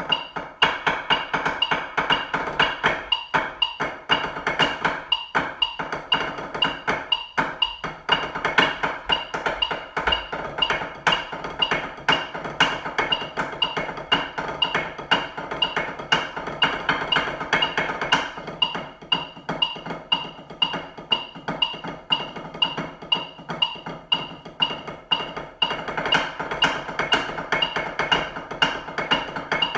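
Drumsticks playing a fast snare drumline exercise on a practice pad: dense rolls and accented strokes, with a few short breaks in the first several seconds. A steady metronome click keeps time under the playing.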